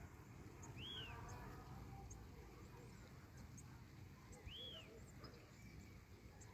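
Faint outdoor ambience in which a bird calls twice, about three and a half seconds apart, each call a short note that rises and falls, over low background noise with scattered faint high ticks.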